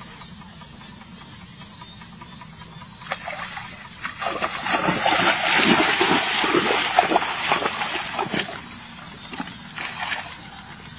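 Splashing of feet running and wading through shallow muddy water, starting about four seconds in and going on for several seconds, with a shorter run of splashes near the end.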